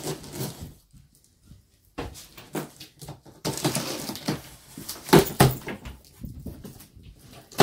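A knife slitting packing tape along the seam of a cardboard box, then tape pulling away and the cardboard flaps being opened, in scratchy bursts with a few sharp knocks of cardboard in the middle.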